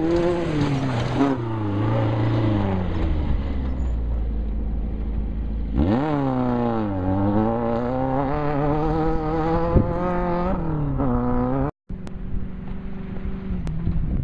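Off-road race buggy's engine revving hard as the buggy slides through a dirt turn, then pulling away, its pitch falling, sweeping sharply up about halfway through and rising and falling with throttle and gear changes. Near the end the sound drops out for an instant and a steadier engine note is left.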